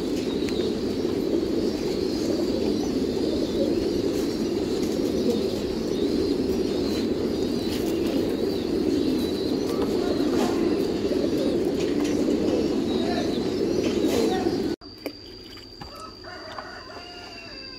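A loft full of pigeons cooing together in a dense, continuous chorus. It cuts off suddenly about 15 seconds in, leaving a much quieter background with a steady high-pitched tone.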